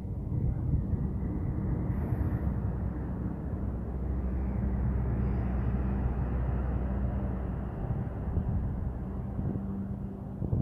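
Diesel-hauled passenger train rolling past: a steady low engine drone with the rumble of wheels on rail. The drone fades about three-quarters of the way through while the coaches keep rumbling by.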